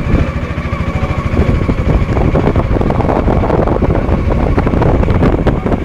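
Auto-rickshaw's small engine running steadily as it drives along, with wind noise on the microphone from riding in the open-sided cab.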